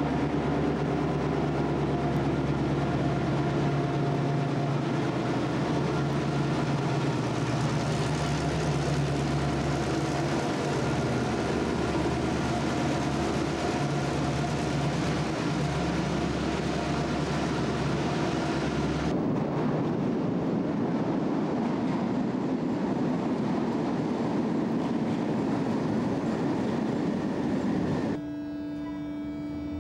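Diesel locomotive engine running steadily with a deep hum at the platform. About two-thirds of the way through, the sound changes abruptly to a lighter rumble. Near the end it gives way to the quieter, steady electric hum of a DART electric train.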